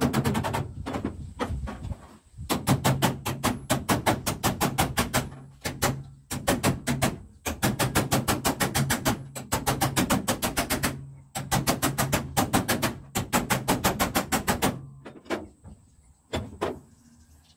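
Rapid hammer taps on a car's steel bonnet panel as a dented body line is knocked back up. They come in several bursts of about seven taps a second, with short pauses, then thin out to a few single taps near the end.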